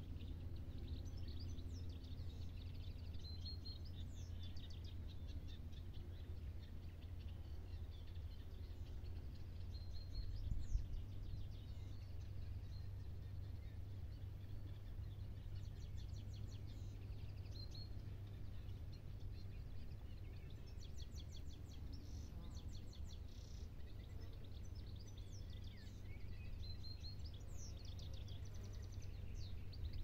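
Small songbirds chirping and singing in short, high trills, some as fast runs of notes, over a steady low rumble. A single brief bump stands out about eleven seconds in.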